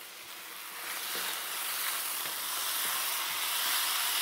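Thin strips of chicken breast sizzling in a hot skillet as they are turned with tongs. The sizzle grows over the first second, then holds steady.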